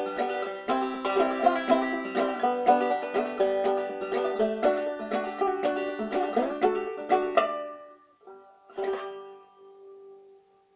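Gold Tone MM-150 open-back banjo played clawhammer style in open G tuning (gDGBD), a quick steady run of plucked and brushed notes that stops about three-quarters of the way through. Two last strums follow about a second apart, and the final note rings and fades out as the tune ends.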